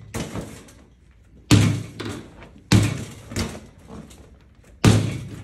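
Mini basketballs being shot at a Pop-A-Shot arcade basketball game: three loud thuds from balls hitting the game, a second or two apart, with softer knocks between them as the balls come back down the ramp.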